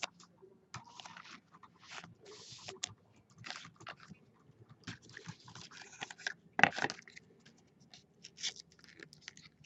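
Baseball cards and pack wrappers being handled: irregular rustling, crinkling and scraping of paper and card stock, with a louder crackle about seven seconds in.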